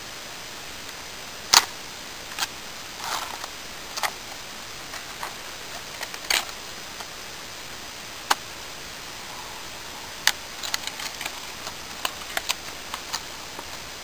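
Irregular sharp clicks and small cracks of a Swiss Army knife blade cutting into a wooden stake, the loudest about a second and a half in and a quick run of them near the end, over a steady hiss.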